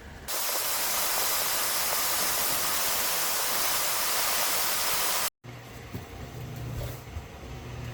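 A steady, even hiss that runs for about five seconds and cuts off abruptly. A low steady hum follows.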